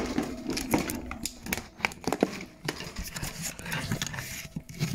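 Irregular clicks, rattles and rustling from handling things in a wire rabbit cage: a plastic tub of dry rabbit mix and the hay bedding.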